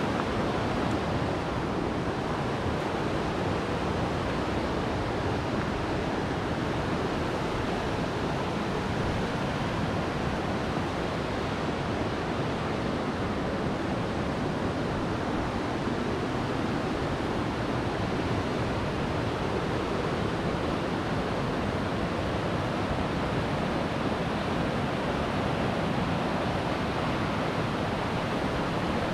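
White-water river rapids rushing steadily.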